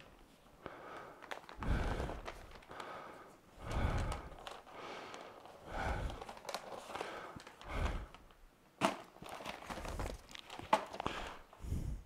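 Rustling and crinkling of a shop vac filter bag and its paper directions being handled and fitted into the vacuum's drum, in separate bursts about every two seconds, with a few sharp clicks and knocks near the end.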